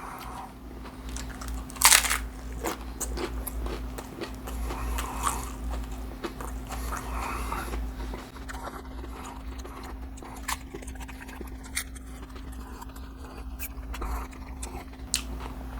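Close-up eating of a crispy fried fish taco: one loud crunching bite about two seconds in, then chewing with a run of small crisp crunches. A steady low hum sits underneath.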